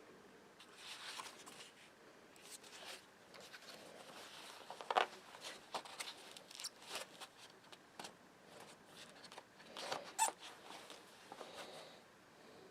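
Faint handling noise from a small tactical flashlight case: scattered rustles and light clicks, the sharpest about five and ten seconds in.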